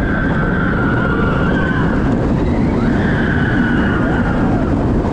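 Steel inverted roller coaster running at speed through its elements: a loud, steady rush of wind over the rider-held microphone mixed with the rumble of the train's wheels on the track. Two long high-pitched tones of a second or two each ride over the noise.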